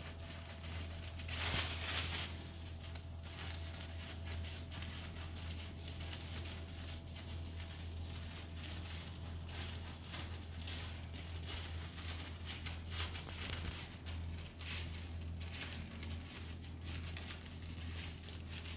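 Scissors cutting a thin dark plastic sheet, with the sheet crinkling and rustling as it is cut and handled; the loudest rustle comes about a second and a half in. A steady low hum lies underneath.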